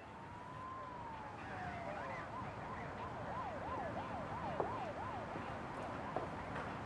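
Emergency vehicle siren fading in: a slow rising and falling wail that switches, about two seconds in, to a fast up-and-down yelp of roughly two to three sweeps a second.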